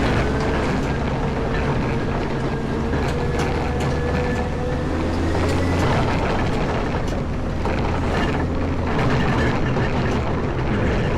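Caterpillar 140M motor grader's diesel engine running steadily under load while clearing snow, with a steady whine over the drone and scattered knocks and clatter.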